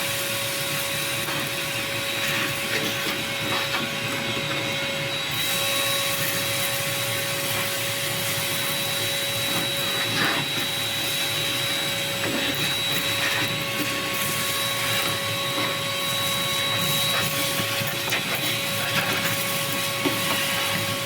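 Vacuum cleaner running steadily with a constant whine, sucking leftover seed out of a seed planter's hopper.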